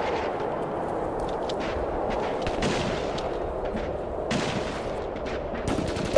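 Battle gunfire: sharp shots scattered over a steady haze of distant firing, with a cluster of louder shots about four seconds in and a rapid run of shots near the end.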